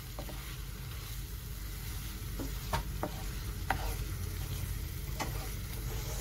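Sliced onion, green chillies, pandan and curry leaves sizzling in hot oil in a non-stick pan while being stirred with a wooden spatula. The spatula scrapes and taps the pan now and then.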